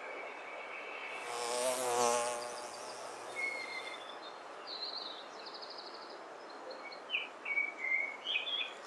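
A flying insect buzzes close past, swelling and fading over about a second and a half with a wavering pitch. Small birds then chirp in short high phrases, twice in the latter half.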